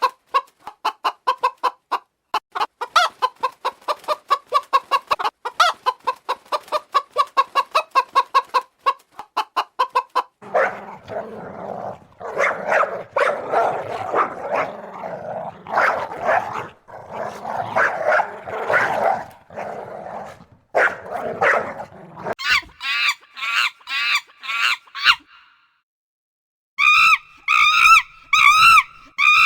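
Chickens clucking in quick, evenly repeated calls for about the first ten seconds. Then comes a louder, rougher run of fowl calls, and near the end short, high, rapidly repeated calls.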